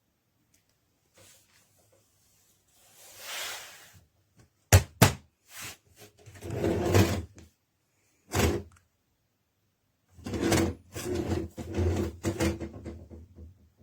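Handling noises from a folding aluminium camping table: a sliding swish, two sharp clicks, then scraping and clattering as it is unfolded and set up.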